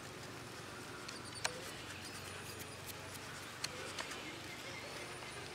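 Quiet outdoor background with faint, scattered high bird chirps and a few soft clicks, about one and a half, three and a half and four seconds in.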